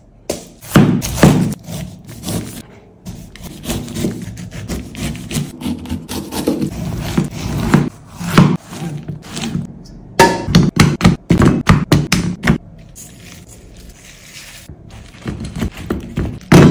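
A chef's knife cuts fresh pineapple on a white plastic cutting board. The blade crunches through the fibrous fruit and knocks on the board in repeated cuts, with a quick run of chops about ten seconds in.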